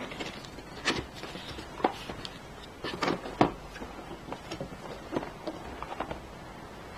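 Stiff cardboard box being opened by hand: the lid scraped, rustled and lifted off the inner box, with irregular taps and knocks, the sharpest about three and a half seconds in.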